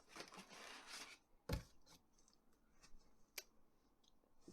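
Faint handling noises of unboxed printer parts: light rustling and rubbing, with two sharp clicks, the louder one about one and a half seconds in.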